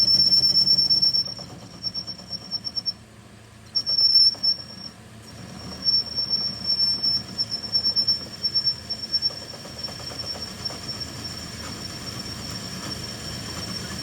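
A high-pitched steady whine from workshop machinery, with a low hum beneath. The whine breaks off and comes back several times in the first half, with bursts of crackle, then runs on evenly.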